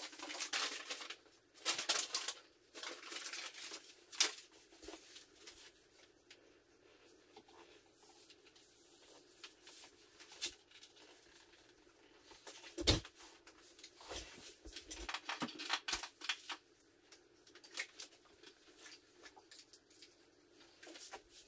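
Irregular clicks, taps and rustling from hands handling equipment, with one louder knock about halfway through.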